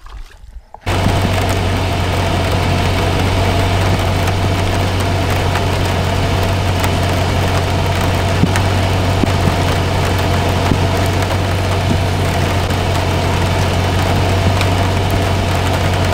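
A steady engine-like hum with a strong low drone, starting abruptly about a second in and running unchanged until it cuts off.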